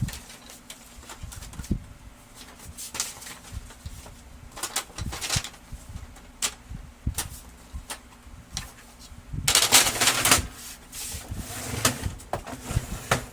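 Plastic printer covers being handled and fitted back on: scattered clicks, knocks and snaps, with a longer scraping rustle about ten seconds in.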